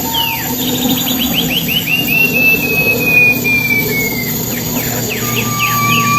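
A wild pipi perak songbird singing loudly: quick runs of short, falling whistled notes, then one long, slowly falling whistle, and a lower whistle near the end.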